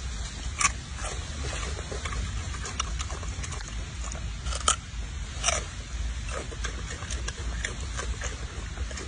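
A macaque biting and chewing raw cucumber: scattered crisp crunches, the loudest about half a second in and twice more around the middle, over a steady low rumble.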